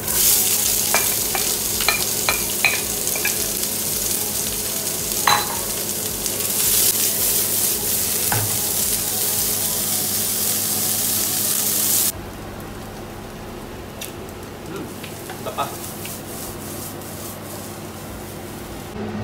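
Julienned carrots and green beans sizzling loudly in a hot oiled frying pan as they are tipped in and stir-fried with a wooden spatula. The spatula makes sharp clicks against the pan. The sizzle drops to a quieter frying hiss about twelve seconds in.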